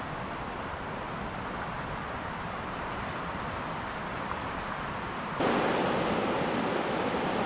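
Steady outdoor rushing noise, with no single sound standing out; about five and a half seconds in it steps suddenly louder and stays at that level.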